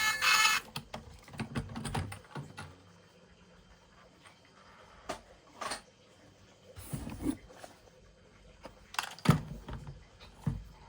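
Toys being handled by hand: scattered light clicks and knocks in short clusters, with quiet gaps between them.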